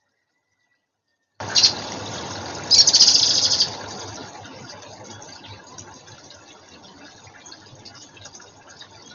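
Water splashing at a garden pond: a short splash, then a louder burst of splashing lasting under a second, fading to low background noise. The sound starts abruptly about a second and a half in.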